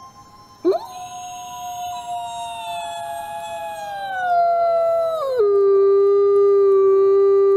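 Wolf howling: one long howl that starts about a second in with a quick upward swoop, slides slowly down in pitch, then drops suddenly near the end to a lower steady note that it holds.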